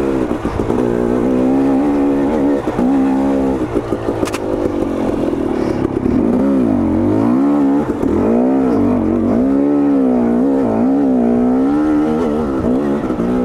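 KTM 250 XC two-stroke dirt bike engine being ridden, its pitch rising and falling again and again as the throttle is opened and rolled off.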